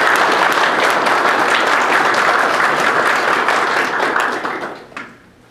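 Audience applauding, a dense clatter of many hands that dies away about five seconds in.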